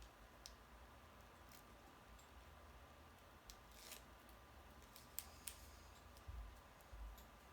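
Faint small ticks and a short scratchy scrape of hands working paper card pieces and foam adhesive tape, picking at the tape's backing.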